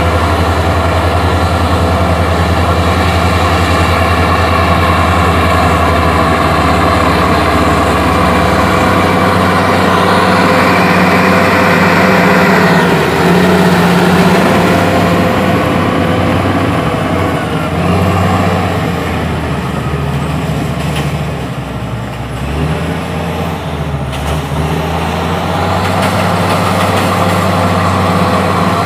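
Heavy diesel engines of a Hino 500 FM260JD dump truck and a crawler bulldozer running, as the truck's tipper bed lifts to dump its coal. The engine note climbs about ten seconds in and eases again later.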